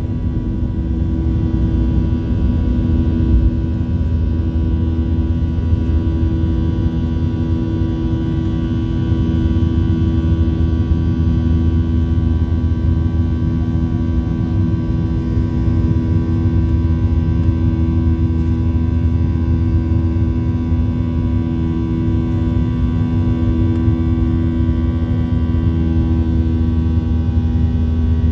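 Boeing 737-800's CFM56-7B turbofan engines at takeoff power as the jet lifts off and climbs, heard from inside the cabin over the wing. The sound is a steady low rumble under a whine made of several steady tones.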